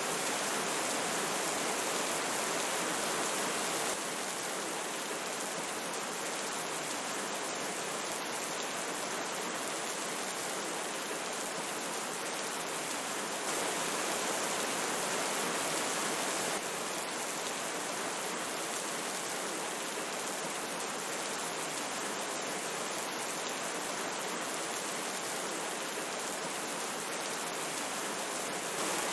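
River water rushing and trickling with rain falling, a steady even hiss of water that shifts a little in loudness a few times.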